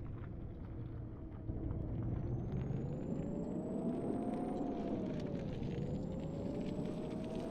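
Vehicle engine being driven, its pitch climbing for a few seconds, dipping briefly past the middle, then climbing again, with a faint high whine following it. It gets louder about a second and a half in.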